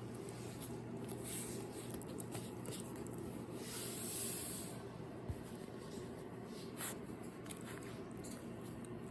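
Shiba Inu puppy's soft snuffling breaths and rustling, a few short breathy puffs with a longer one in the middle, over a steady low hum.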